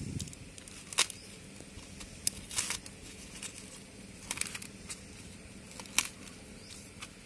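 Sun-dried rice sandige wafers being peeled by hand off a dried, papery leaf: a handful of sharp crackles and crinkles, a second or two apart, as the brittle wafers come loose. The wafers are dried crisp after two days in the sun.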